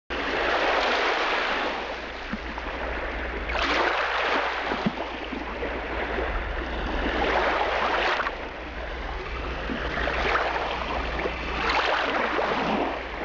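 Ocean surf washing in, starting abruptly and swelling and falling back every few seconds, over a low steady hum.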